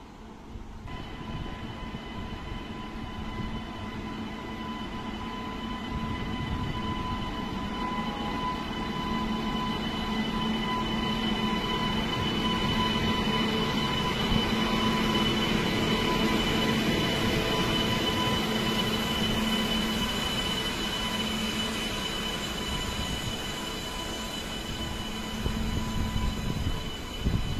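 WAG-9 electric locomotive hauling a train of coaches past: a steady high whine over the rumble of wheels on the rails, growing louder as it approaches and passes, with a few louder knocks near the end as the coaches roll by.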